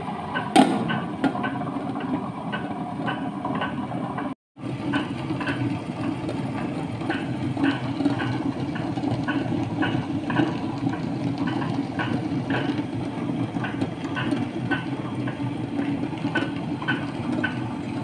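Orient table-top wet grinder running, its stone rollers grinding soaked rice and urad dal into batter: a steady motor hum with a regular clicking about twice a second. The sound cuts out briefly about four seconds in, then carries on the same.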